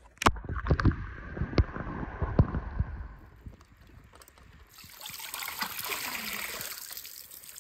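A pool skimmer net on a pole moving through swimming-pool water, with water sloshing and several sharp knocks over the first three seconds. About five seconds in, water pours and splashes off the mesh as the net is lifted out.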